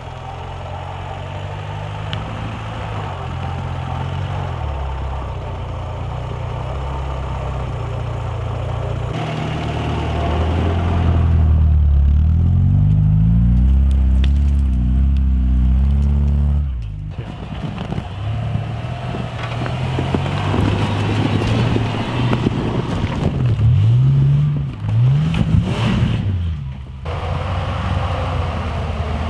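Off-road vehicle engines revving and labouring, the engine pitch rising and falling several times, with the sound changing abruptly a few times as between separate shots.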